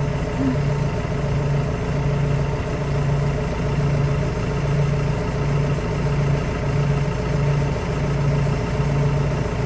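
Engine idling steadily: a continuous low hum with a slow, even throb, about one and a half pulses a second.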